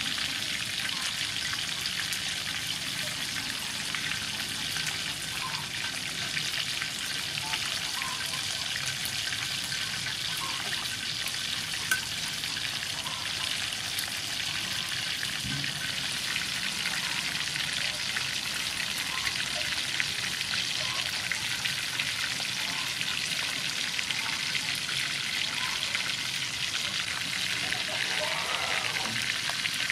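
Breaded chicken wings deep-frying in hot soybean oil in a wok: a steady sizzle with fine crackling. One sharp click about twelve seconds in.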